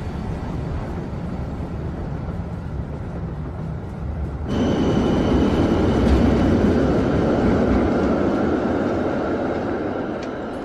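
A train running with a steady rumble. About four and a half seconds in it suddenly grows louder and fuller, with a thin high whine added, then slowly eases off.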